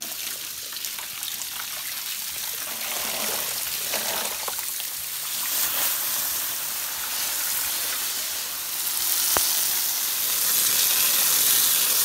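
Garden hose spray nozzle spraying water onto a window air conditioner's finned coil, rinsing the dirt out of it: a steady hiss that grows louder about nine seconds in. One faint click is heard at about the same time.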